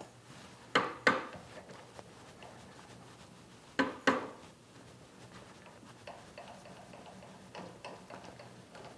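A small soft-faced hammer tapping a steel workpiece clamped on a milling machine table: two quick double taps about three seconds apart, then a few lighter taps. The taps nudge the piece into alignment against a dial test indicator.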